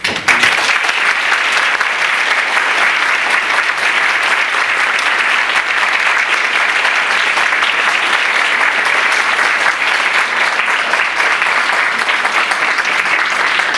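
Audience applauding: dense, even clapping from many hands that starts abruptly and holds steady.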